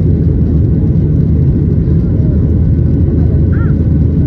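Steady low-pitched drone of a Boeing 737-800's engines and airflow heard inside the passenger cabin in flight.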